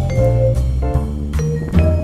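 Background music: held melody notes over a bass line, with drum hits.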